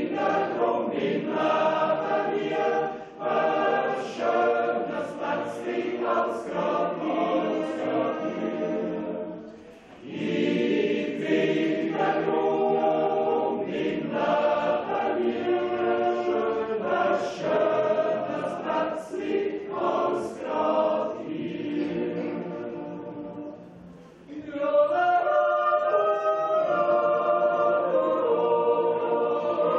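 A large Swiss yodel choir of mostly male voices singing a Jodellied in harmony, unaccompanied, in long phrases with short breaks for breath about 3, 10 and 24 seconds in.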